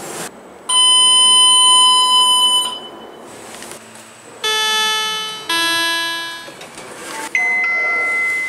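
Lift arrival chimes from several different lifts: a high, steady electronic beep lasting about two seconds, then a falling two-note ding-dong chime with each note fading, then another electronic chime tone starting near the end.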